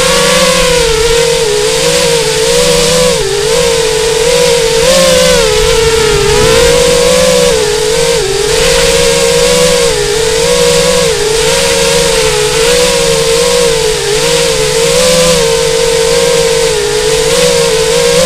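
FPV racing quadcopter's brushless motors and propellers whining, the pitch rising and falling constantly as the throttle is worked in low, swooping flight.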